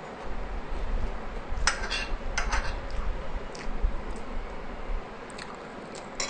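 A steel spoon scraping and clinking against a glass bowl as food is scooped up, with a cluster of sharp scrapes about two seconds in and a few lighter clicks near the end.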